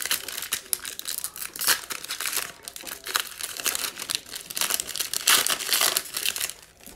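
Foil wrapper of a 2019-20 Panini Illusions basketball card pack being torn open and crinkled as the cards are pulled out, a dense run of crackling and rustling.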